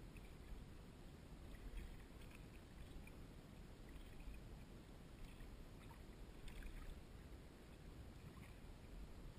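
Faint kayak paddling on calm water: the paddle blade dipping and dripping in soft, scattered little splashes over a low rumble.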